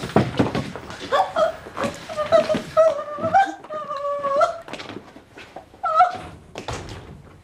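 A woman wailing and crying in long, high, wavering cries without words, over the clatter of footsteps and shuffling.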